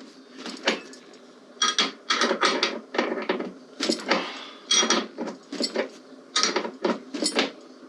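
Irregular metallic clicks and clacks of saddlebag mounting hardware being handled and fitted, a few with a short metallic ring.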